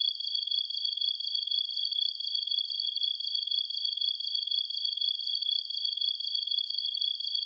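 Late-summer night insect chorus: crickets trilling in a dense, unbroken drone at two steady high pitches.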